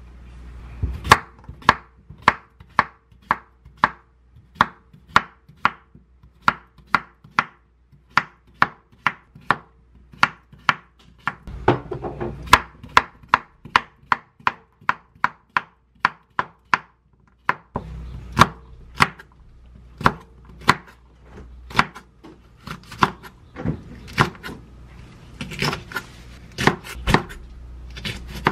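Kitchen knife slicing through cucumber and knocking on a wooden cutting board, a steady run of sharp knocks about two a second. Near the end, red chili peppers are chopped on the same board.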